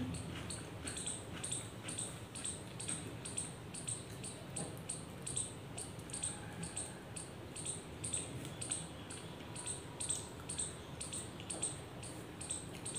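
Crisp fried chips being chewed close to the microphone: a steady run of sharp crunches, about three a second.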